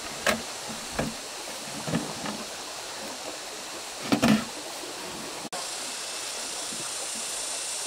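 A few short knocks of hand work, the loudest a quick double knock about four seconds in, over a steady rushing hiss like flowing water; the sound breaks off abruptly a little past five seconds and the hiss resumes.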